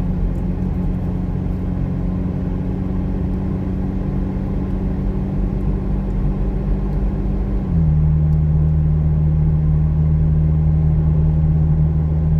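McLaren Artura's twin-turbo V6 running steadily at low speed, heard from inside the cabin. About two-thirds of the way in its hum drops to a slightly lower pitch and gets a little louder.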